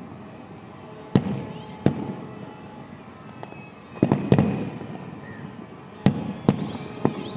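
Aerial fireworks shells bursting: seven sharp bangs, mostly in close pairs a second or two apart, each followed by a rolling low rumble.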